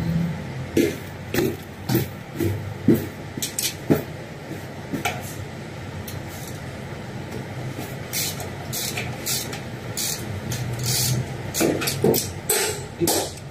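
A 14 mm socket and ratchet working the oil drain plug on a Toyota Coaster's diesel engine sump, heard as a string of sharp metal clicks and knocks. The knocks come about half a second apart in the first few seconds, and quicker, brighter clicks follow from about eight seconds in.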